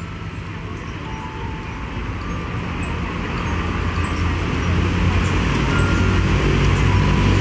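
A motor vehicle's engine running with a steady low hum, growing steadily louder.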